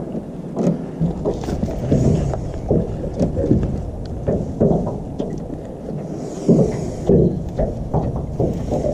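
Irregular knocks and thumps against a jon boat's metal hull as a landing net holding a large pickerel is hauled aboard, over a steady low rumble.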